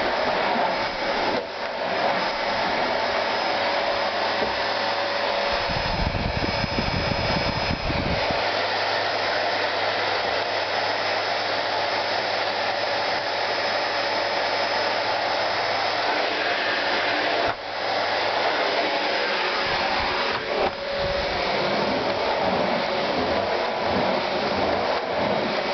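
Miele S712 cylinder vacuum cleaner running steadily: a continuous rushing whine of motor and suction. A low rumble joins in for a couple of seconds about six seconds in and again over the last few seconds, and the sound dips briefly twice in the second half.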